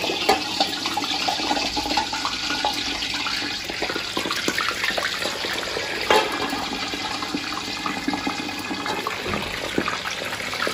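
Skin-on pork belly deep-frying in hot oil in a lidded wok: a steady, dense sizzle with scattered pops and crackles.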